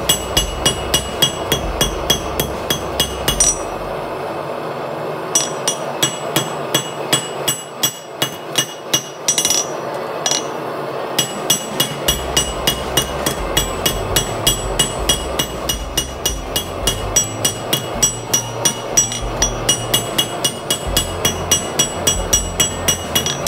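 Blacksmith's hand hammer striking a red-hot flat steel bar on an anvil, about three blows a second, each with a bright metallic ring. The blows come in runs broken by a couple of short pauses.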